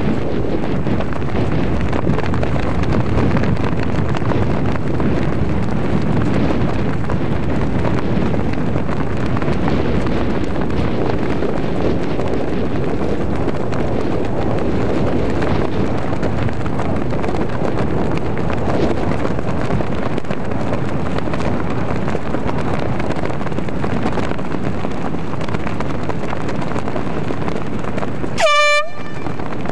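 Wind buffeting the microphone steadily, then a short, high horn blast near the end.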